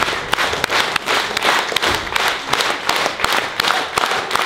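Theatre audience applauding: many hands clapping in a dense, steady wash.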